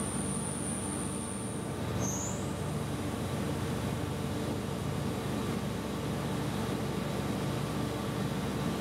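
Four-flute CESUS square end mill slot-milling SUS304 stainless steel at 2,900 rpm and 10 mm depth under flood coolant: a steady cutting and spindle noise with coolant spray. A thin high whine stops about two seconds in, and a brief higher chirp follows.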